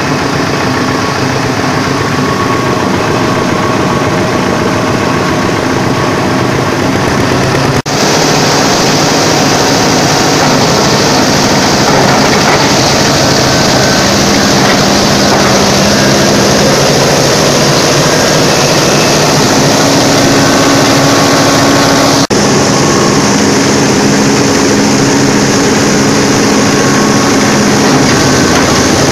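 Engine-driven chopper (pencacah rumput) running loud and steady while crushing dry corn cobs fed into its hopper: the engine drone under the noise of cobs being shredded. It drops out for an instant twice.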